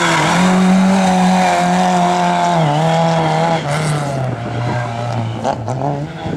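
Rally car engine running hard at high revs, its pitch dipping twice and then climbing again near the end, with a few sharp cracks in the second half.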